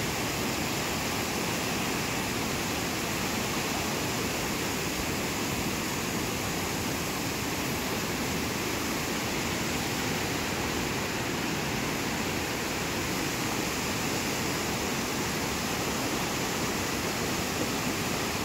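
Muddy mountain river in flood rushing past, a steady unbroken rush of turbulent water.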